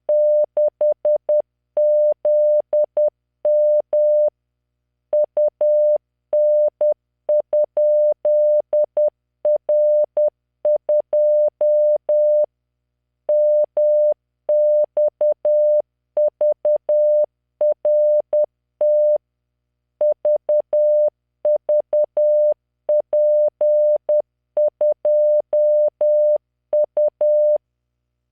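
Morse code practice tone: a 600 Hz sine tone keyed on and off in dots and dashes at 10 words per minute, sending random five-character code groups with short pauses between groups. The tone stops near the end.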